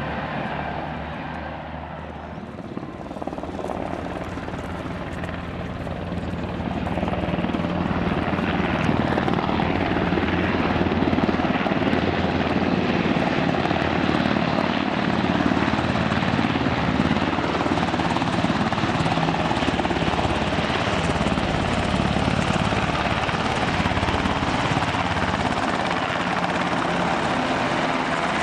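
UH-60J Black Hawk rescue helicopter in flight, its rotor and turbine noise growing louder a few seconds in as it approaches, then holding steady and loud.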